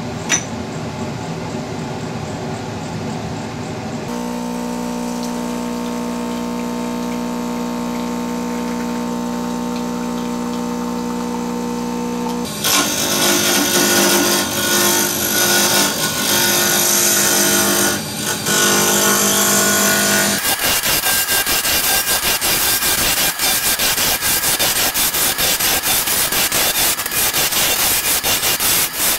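Wood lathe running: first a steady motor hum, then, about twelve seconds in, the louder, rougher sound of a turning tool cutting the spinning wooden blanks. From about two-thirds of the way in comes a fast, even rasping as sandpaper is held against the spinning wood.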